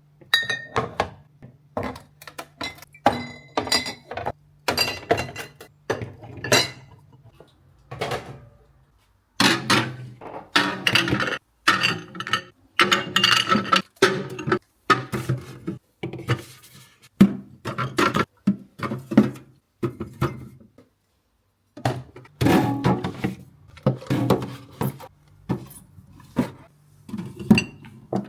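Kitchen items being handled and set down: a busy run of clinks and dull knocks from dishes, containers and utensils, with a few short pauses.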